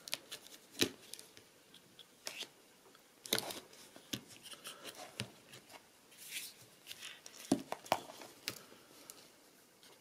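Two Victorinox Swiss Army pocket knives being handled and laid side by side on a table: a scattering of small metallic clicks and taps with soft scraping and rustling between them.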